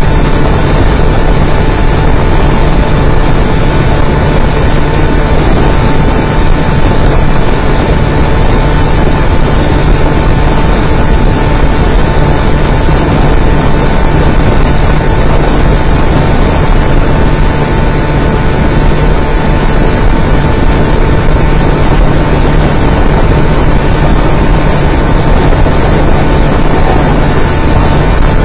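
Aircraft engine noise heard from inside the cockpit: a loud, unchanging drone of engines and rushing air, with a steady low hum and a thin steady whine above it.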